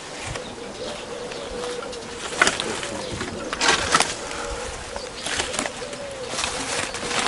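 A dove cooing over and over in a steady repeating phrase, with sharp crackles of dry branches and sticks being pulled apart by hand several times.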